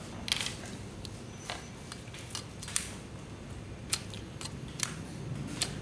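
Scattered small clicks and taps, about eight of them, from handling PVC and metal air-hose quick couplers.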